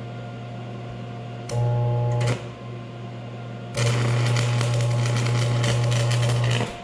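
Vulcan Commander 225 transformer arc welder humming steadily, its buzz swelling with the crackle of a stick-welding arc twice as tack welds are laid: a short arc of under a second about a second and a half in, then a longer arc of about three seconds.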